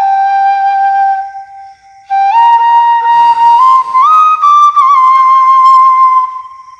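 Bamboo flute (bansuri) playing a slow, sad melody in long held notes with slides between them. The line fades out briefly about a second and a half in, then returns and climbs step by step to higher notes before fading again near the end.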